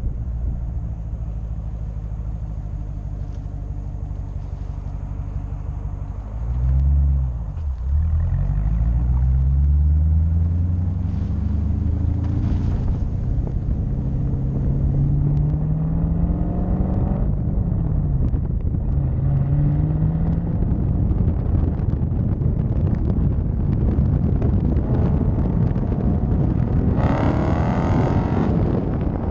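Dodge Challenger Scat Pack's 6.4-litre HEMI V8 running with its mufflers deleted, heard from inside the car while driving. It gives a short sharp rev about six seconds in, then pulls away with the exhaust note rising and dropping at each gear change, and settles into a steady rumble.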